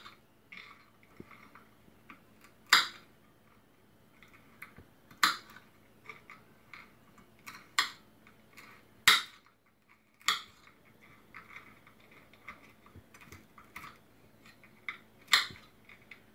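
Pecans and walnuts being shelled by hand: irregular sharp snaps of shell breaking every second or few, with quieter crackling and small clicks of pieces on a plate between them.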